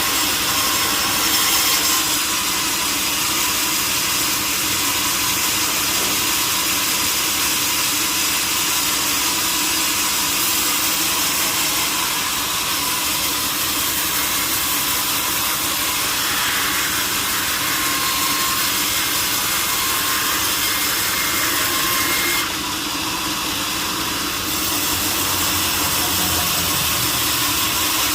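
Sawmill saw running steadily while cutting through a large log, a loud continuous machine noise with a hissy edge. It dips briefly in level about three quarters of the way through.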